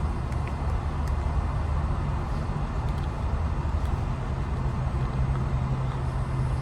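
Steady low rumble and hum with a noisy hiss above it, constant throughout.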